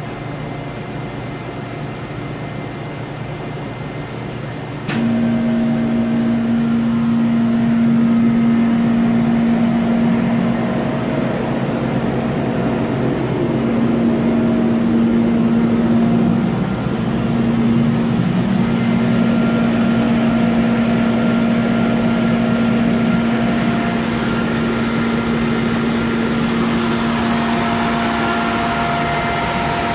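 Charmilles Robofil 290 wire EDM running with a steady machine hum, its water flushing over the cut. A click about five seconds in, after which a louder, steady hum with a low tone sets in.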